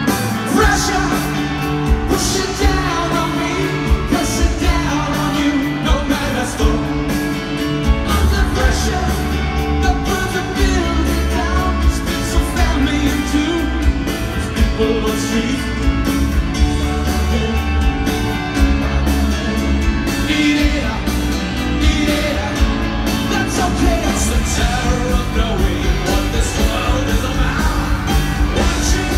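Rock band playing live with singing, heard from the crowd, over a steady repeating bass line and beat.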